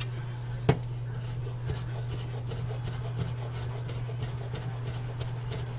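Large kitchen knife chopping rolled fresh sage leaves on a bamboo cutting board: rapid taps of the blade on the wood, after a single sharp knock about a second in. A steady low hum runs underneath.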